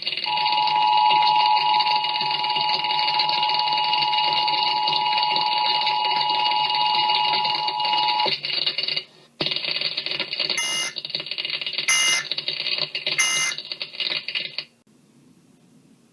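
Emergency Alert System attention signal: a steady two-tone electronic alarm sounds for about eight seconds over a steady hiss. After a brief break come three short electronic chirps a little over a second apart, and then it goes quiet.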